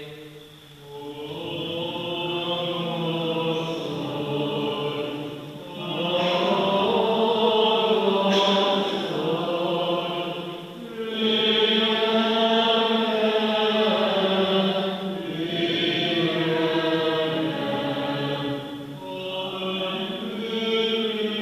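Byzantine-rite liturgical chant from the Divine Liturgy: voices sing slow, sustained phrases, with a short break between phrases every few seconds.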